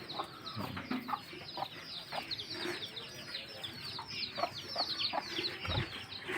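Chickens clucking amid a dense run of rapid, high, falling chirps from birds, with a few soft knocks.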